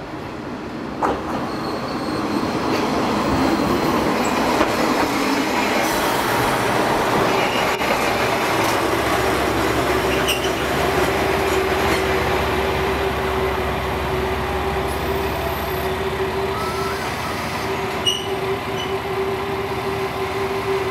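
A JR KiHa 40-series diesel railcar running in along a station platform. The sound of its diesel engine and wheels grows over the first few seconds, then settles into a steady low rumble with a sustained tone through the second half.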